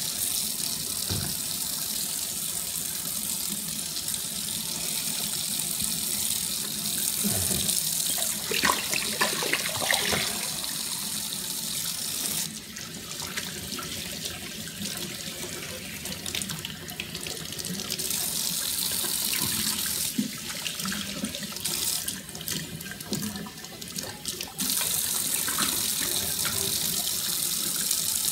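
Kitchen faucet running into a stainless-steel sink while a glass beer bottle is rinsed and rubbed by hand under the stream. For two stretches in the middle the splash goes duller and quieter as the water lands on the hands and bottle, and a few light knocks of the bottle come through.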